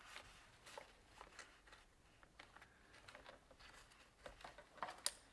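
Faint, scattered small clicks and scrapes of a thin pick working at the clip on a fuel injector seated in its fuel rail, with one sharper click near the end.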